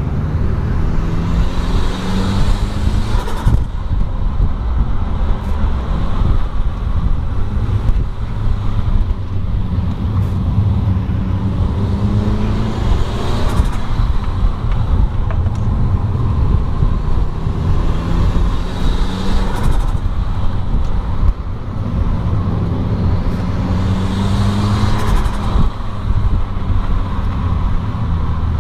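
A motor vehicle's engine over a heavy, steady low rumble. Its pitch climbs four times and drops back after each climb, as when the engine is revved up or pulled through the gears.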